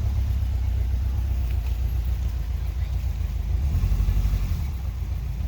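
Subaru Outback engine pulling under load on an off-road climb, a steady low rumble that swells briefly about four seconds in.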